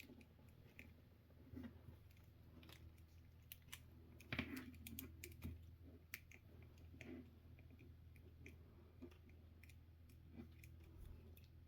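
Faint, scattered clicks and taps of a plastic action figure being handled as its parts are fitted and posed, with a somewhat louder knock about four seconds in, over a faint low hum.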